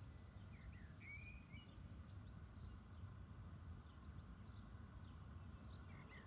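Faint outdoor ambience: a small bird chirps a short phrase about a second in and again near the end, over a low steady rumble.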